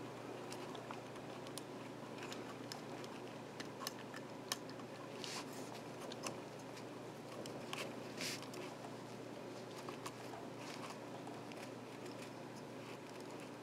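Faint, scattered small clicks and scrapes of fingers handling and fitting an antenna into a plastic DJI Mavic 2 landing-gear leg, with two brief rustles about five and eight seconds in.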